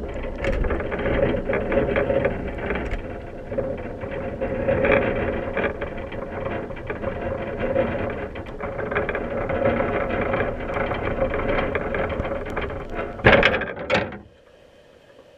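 Wire crab pot sinking through water, heard from inside it: continuous rattling and clicking of the pot and its gear, with water rushing past. About 13 s in come two loud thuds as the pot hits the sea floor, and the rattling stops, leaving a faint hiss.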